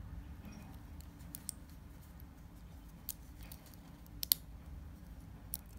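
Stainless-steel flip-lock folding clasp of a Tudor Iconaut bracelet being handled with cotton gloves: a few faint, sharp metal clicks, the loudest a double click about four seconds in, over a low steady hum.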